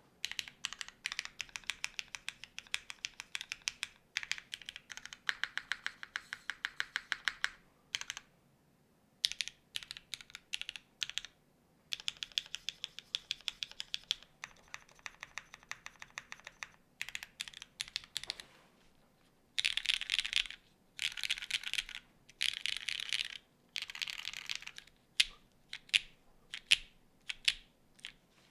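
Keys being pressed on a Kohaku R2 gasket-mount mechanical keyboard with an aluminum plate, lubed and filmed Cherry MX Black linear switches and GMK keycaps. First the modifier keys, then the alpha keys, in fast runs of keystrokes with short pauses. Near the end come slower single presses.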